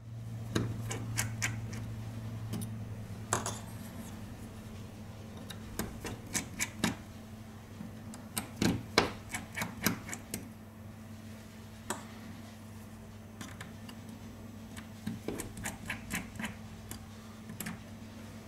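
Precision Phillips screwdriver clicking and tapping on the tiny Wi-Fi antenna screws and metal frame inside an open iPhone 6 as the screws are undone. The light clicks come in scattered clusters over a steady low hum.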